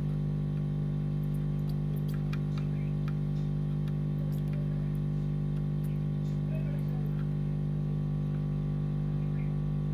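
A steady electrical hum with a stack of even overtones, unchanging throughout, with faint light clicks and taps from small-tool bench work scattered through it.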